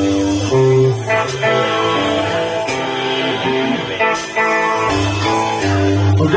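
Live rock band playing an instrumental passage: guitars sounding sustained chords over bass notes, with faint cymbal hits.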